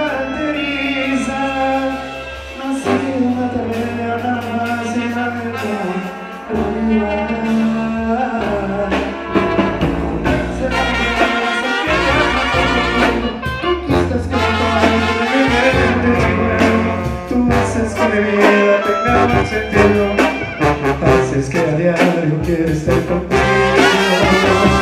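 Live Mexican banda playing: tuba carrying a bass line of held notes under trumpets, trombones and clarinets, with a man singing into a microphone over the horns.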